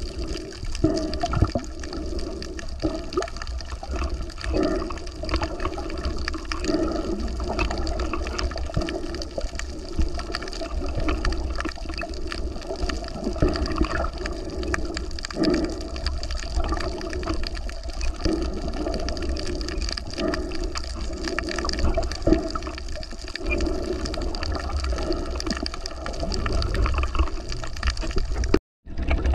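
Seawater sloshing and gurgling continuously, with many small clicks and splashes. The sound cuts out for a split second near the end.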